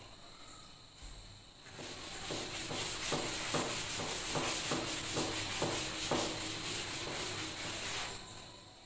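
Chalkboard duster rubbed back and forth over a chalkboard, wiping off chalk writing: a rasping scrub in quick strokes, about three a second. It starts about two seconds in and stops about eight seconds in.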